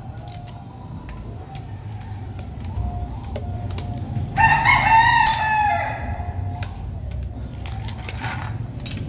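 A rooster crows once, about four seconds in, a single call lasting about a second and a half. Scattered light clicks and a low steady rumble sit underneath.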